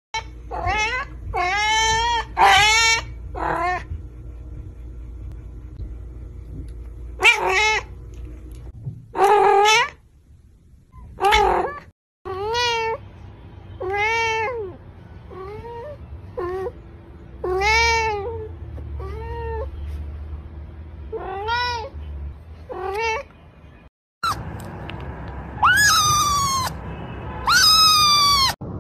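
Domestic cats and kittens meowing in a run of short clips. Each meow is a separate pitched call that rises and falls. In the middle stretch one cat meows about every one to two seconds, and two long, high-pitched kitten meows come near the end.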